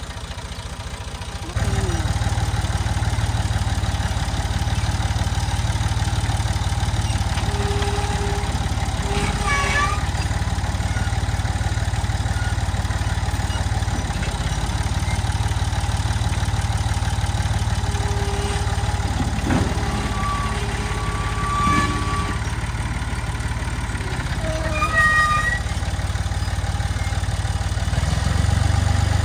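Massey Ferguson 148 tractor's three-cylinder diesel engine running steadily at idle. It comes in loudly about a second and a half in and speeds up near the end.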